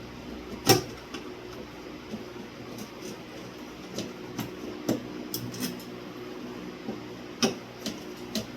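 Scattered metal clicks and clinks as a ceiling fan's mounting bracket and its screws are worked loose from the ceiling box, the sharpest about a second in and again near the end.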